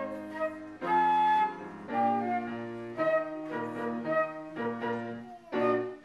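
Flute playing a melody over grand piano accompaniment, a flute-and-piano duet in short phrases of held and moving notes with brief breaks between them.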